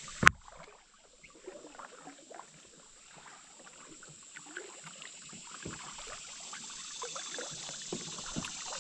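Kayak drifting on a river: one sharp knock just after the start, then faint water trickling and small scattered ticks that slowly grow louder.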